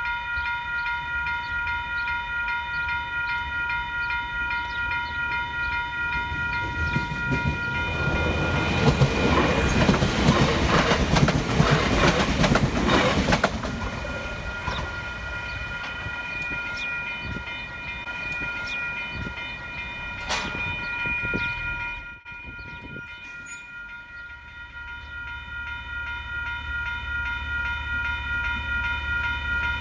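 Railway level-crossing warning bells ringing in a steady repeating rhythm. About eight seconds in, an Auckland AM class electric multiple unit passes close by, and its wheels and running noise drown the bells for about five seconds before they ring on. The sound drops out briefly a little past twenty seconds in, then the crossing bells ring again.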